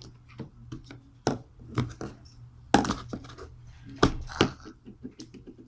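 Irregular clicks, taps and knocks from hands working slime-making materials and containers, a few sharper knocks among them, over a steady low hum.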